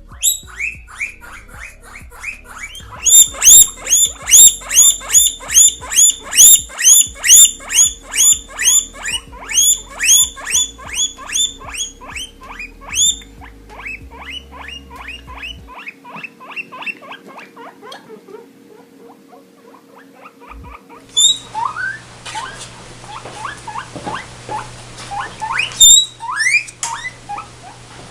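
Guinea pigs wheeking: loud, high-pitched squeals repeated about twice a second, the call guinea pigs make when hungry and asking for food. The calls grow fainter after about thirteen seconds, and near the end only a few scattered squeals come over a low steady hum.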